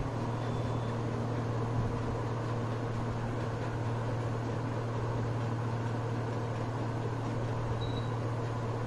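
Steady low hum with an even hiss underneath: continuous room background noise of a running machine such as a fan, unchanging throughout.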